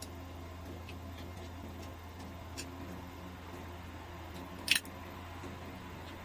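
A cola drink being opened: one short, sharp hiss-crack about three-quarters of the way in, over a steady low hum with a few faint clicks.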